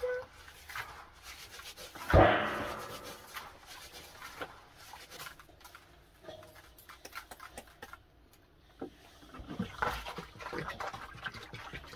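Hands rubbing and swishing rice grains in water in a plastic basin, a stream of small wet clicks and rustles, with a louder thump about two seconds in. Near the end, water is poured from a plastic jerry can into the basin.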